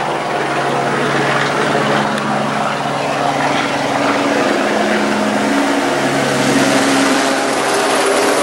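LAPD police helicopter passing low overhead: a steady hum of rotor and engine over a broad rush of noise, growing louder toward the end as it comes over.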